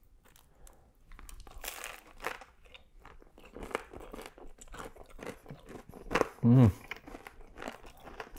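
Close-miked eating: biting into and chewing a falafel waffle topped with lamb and cheese, with a run of small crunches and wet mouth clicks. A brief, loud vocal sound from the eater about six and a half seconds in.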